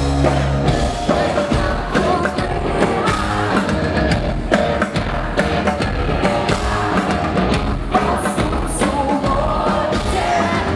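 Rock band playing live at full volume: a female lead voice singing over electric guitars and a steady drum beat.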